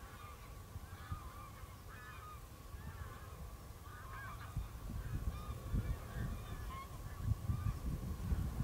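Geese honking off and on, many short calls overlapping. Under them a low rumble grows louder in the second half.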